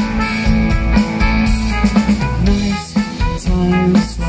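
Live rock band playing an instrumental passage at full volume: drum kit keeping a steady beat under electric guitars and bass guitar.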